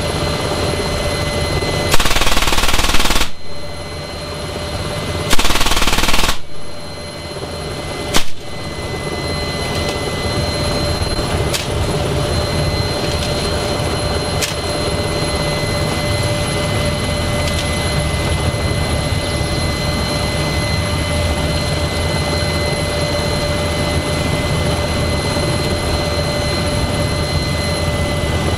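A 12.7 mm M3M heavy machine gun, door-mounted on an NH90 helicopter, fires two bursts of about a second each, about two and five seconds in, then a very short third burst about eight seconds in. After that the helicopter's turbine and rotor noise runs on steadily, with a high whine.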